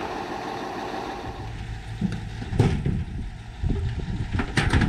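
An engine running steadily with a low hum, joined by a few short sharp knocks, the loudest about two and a half seconds in and near the end.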